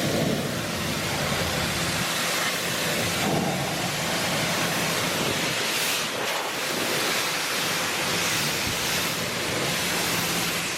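Small 1500 psi electric pressure washer spraying mud off a car: a steady hiss of water spray with a faint constant hum underneath.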